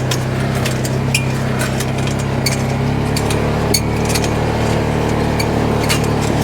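Polaris RZR 570 side-by-side's single-cylinder engine pulling steadily up a steep climb in four-wheel drive, its note dropping about three seconds in. Frequent light clicks and rattles run over the top.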